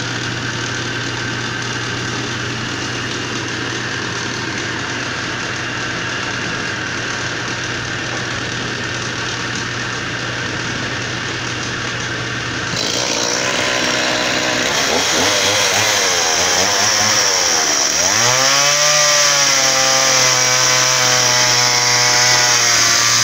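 Wood lathe's three-phase motor running steadily on a single-phase 220 V supply, its start capacitor switched out. About halfway through, a Husqvarna two-stroke chainsaw takes over, revving up and down a few times and then running steadily at high speed.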